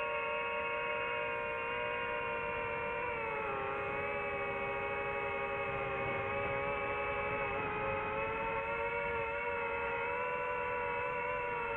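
DJI FPV quadcopter's motors and propellers whining steadily in flight, several close pitches beating together. The pitch sags a little about three seconds in and comes back up later as the throttle changes.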